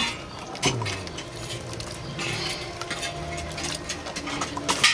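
Cement and Boysen Flexibond waterproofing being mixed by hand in a small pail: wet stirring and scraping, with repeated sharp clicks of a trowel against the pail, the loudest near the end.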